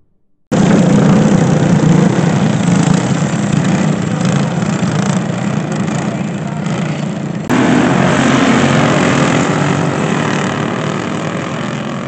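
Go-kart engines running hard as a pack of racing karts passes. The sound cuts in suddenly about half a second in and jumps abruptly louder at an edit about seven seconds in, then slowly fades as the karts move away.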